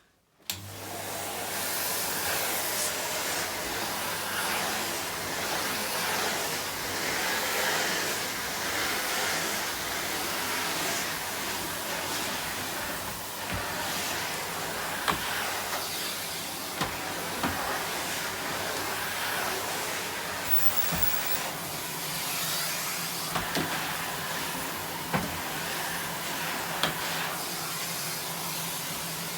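Numatic NVQ250 tub vacuum cleaner, fitted with a spare motor of the original type, switched on about half a second in and then running steadily: a broad rushing whoosh over a low hum. A few light knocks come through now and then.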